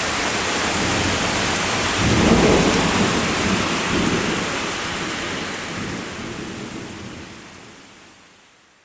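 Thunderstorm: rain hissing steadily while a low rumble of thunder swells about two seconds in, with a second rise around four seconds. The whole sound then fades away toward the end.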